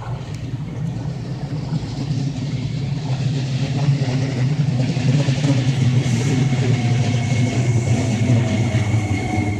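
Iyotetsu 3000-series electric train pulling into the station: a low hum and wheels running on the rails, growing louder as it draws alongside. A thin high squeal joins about six seconds in, and a fainter tone falls slightly in pitch as the train slows.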